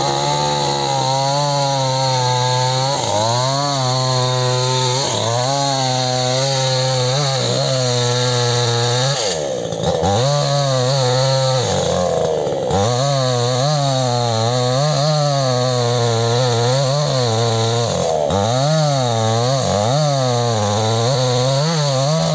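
Two-stroke chainsaw cutting into the trunk of a rubber tree, its engine pitch wavering up and down as the chain loads and frees in the cut. The revs drop back briefly twice near the middle.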